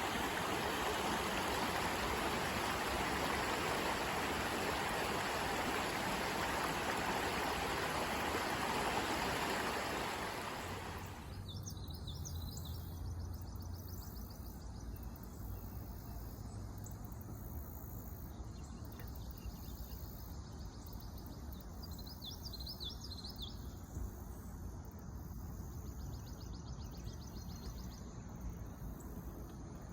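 Creek water flowing steadily for about the first ten seconds, then it cuts off abruptly to quieter woodland ambience with a high, rapid trilling at times and a bird chirping briefly about two-thirds of the way through.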